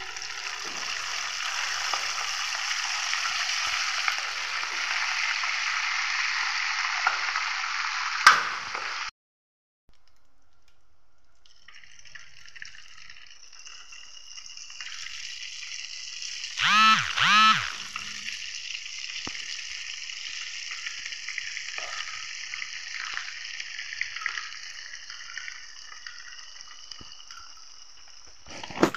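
Thin strands of semolina sev dough sizzling as they fry in hot oil. The sizzle is loud at first and cuts off for about a second after nine seconds, then comes back quieter. About halfway through come two short squeaky tones in quick succession.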